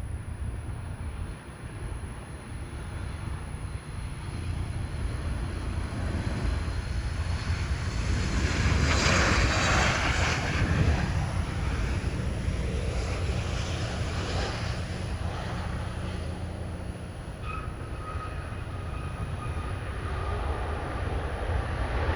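Boeing 737 MAX 8 jet engines (CFM LEAP-1B) on landing approach, growing louder to a peak about nine to eleven seconds in as the airliner passes. A thin steady whine comes in after about seventeen seconds over a continuous low rumble.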